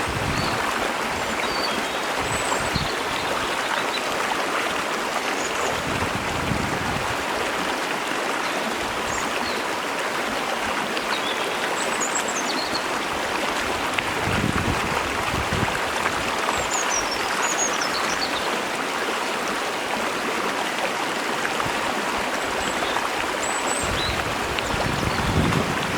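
Mountain waterfall and stream water rushing steadily, with short high bird chirps scattered across it.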